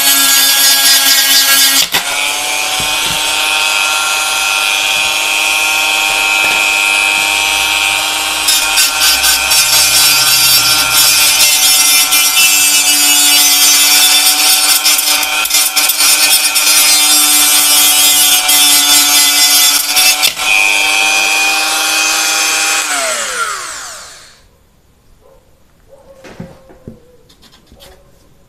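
INGCO 130 W mini rotary tool (die grinder) running at medium speed with a sandpaper attachment pressed on a thin steel putty-knife blade: a steady high motor whine under the harsh rasp of abrasive on metal as the rust is sanded off. About 23 seconds in the tool is switched off and winds down with a falling whine, followed by a few faint clicks.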